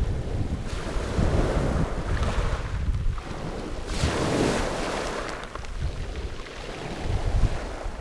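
Small waves breaking and washing up over a pebble beach, the hiss of the surf swelling about halfway through. Wind buffets the microphone with a low rumble.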